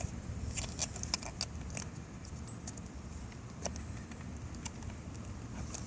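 Scattered small clicks and scratches of hard plastic being handled as a cruise control switch's wiring harness plug is worked out of the switch.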